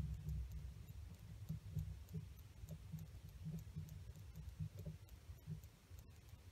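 Faint clicks and handling noise as the bowl drain is unscrewed by hand from a Gravely L8 walk-behind tractor's carburetor, with small irregular taps of metal parts in the fingers.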